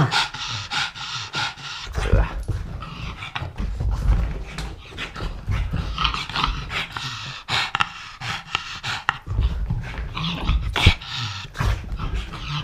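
A pug panting and scuffling as it runs about on carpet in a burst of post-bath zoomies, with scattered short thumps and clicks.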